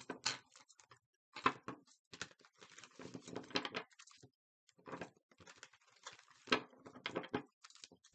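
Tarot cards being shuffled by hand, the deck split and riffled together in a run of papery flutters and taps with short pauses between them.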